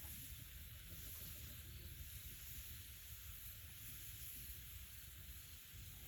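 Faint steady hiss with a low rumble beneath it, and no distinct events.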